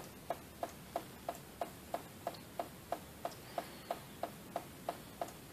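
Coolant dripping from a leaking radiator in a steady, evenly spaced series of faint drips, about three a second.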